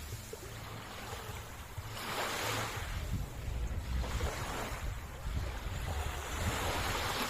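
Ocean waves washing onto the shore, the surf swelling and fading in surges every few seconds, with wind rumbling on the microphone.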